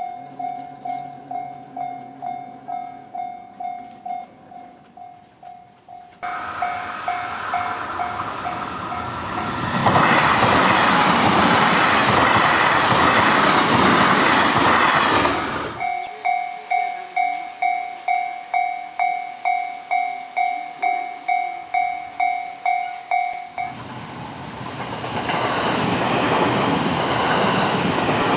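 Japanese level-crossing warning bell ringing in even electronic dings, about two a second. Trains pass on the JR Hanwa Line, with a loud roar of wheels and motors. The sound switches abruptly: the bell alone, then a passing train loud for about five seconds, the bell alone again, and another train starting to pass near the end.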